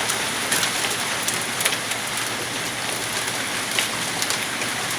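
Hail and heavy rain pelting down in a thunderstorm: a steady hiss with scattered sharp ticks of stones striking.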